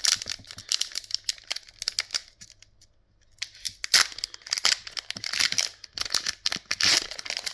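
Foil Pokémon TCG booster pack wrappers crinkling and crackling as they are handled, in two spells with a short pause about two to three seconds in.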